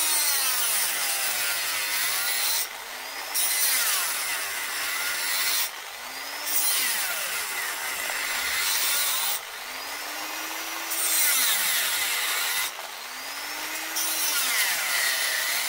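Small power tool cutting through a stainless steel hose clamp, in passes of about three seconds with short lulls between them, its motor pitch dipping and rising as it takes the load.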